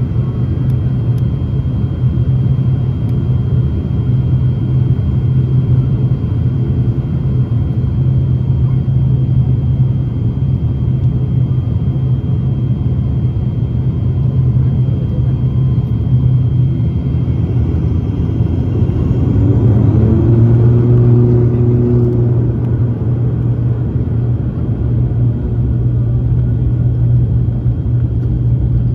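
Turboprop airliner's engines droning steadily inside the cabin as the aircraft moves along the runway. About two-thirds of the way through, a rising whine and a brief change in the engine note come in as the level swells slightly, then the drone settles again.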